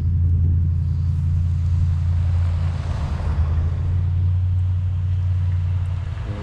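A motor vehicle's engine running steadily close by as a low rumble, with a brief rise of hiss about three seconds in.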